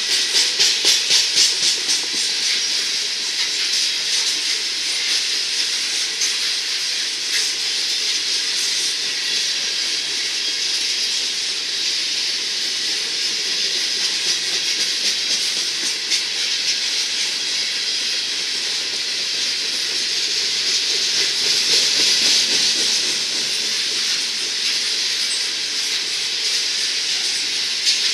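Freight train's coal hopper cars rolling past close by: steady, hissing rumble of steel wheels on rail. A quick rhythmic clatter of wheels over the track comes during the first two seconds, and the sound swells a little about three-quarters of the way through.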